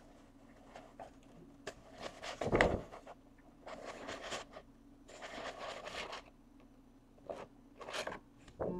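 Off-camera handling noises: a few scattered clicks and knocks, and two rustling, scraping stretches of about a second each, around four and five seconds in.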